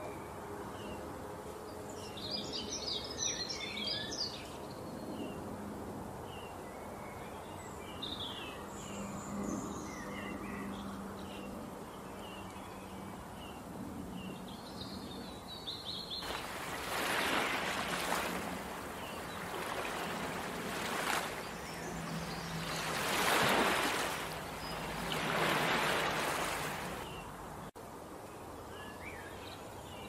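Small birds chirping and twittering, with a dense run of rapid calls about two to four seconds in and scattered calls after. In the second half four loud swelling rushes of noise come and go, the loudest about two thirds of the way through.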